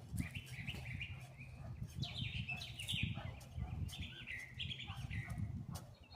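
Songbirds chirping in clusters of short, downward-sliding notes, over a low rustling and scraping with scattered clicks.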